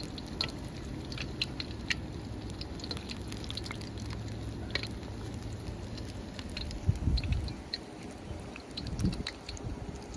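Hush puppies deep-frying in hot oil in a wok-style pan: a steady sizzle with many small scattered crackling pops. Twice in the second half there are dull low thumps, the loudest moments.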